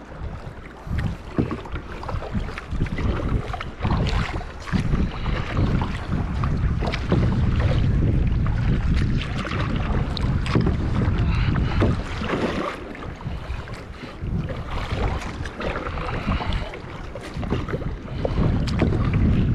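Kayak paddle strokes dipping and splashing in choppy sea water, under a heavy, gusting wind rumble on the microphone.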